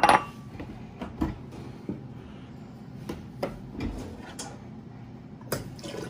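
Kitchen cupboard and dishes being handled as a bigger bowl is fetched: a loud clatter at the start, then scattered knocks and clunks, with a sharp knock near the end.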